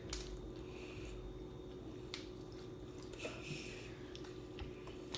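Wet chewing and squishing of seafood-boil food being eaten, with a few small clicks scattered through.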